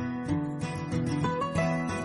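Background music of plucked strings, guitar-like, with notes picked in a steady rhythm.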